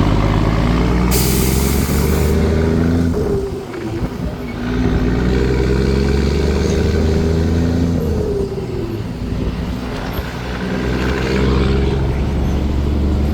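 Scania 4-series truck's diesel engine pulling away through the gears, its pitch climbing and then dropping at each shift, about three seconds in and again around eight seconds. A brief hiss of air comes about a second in.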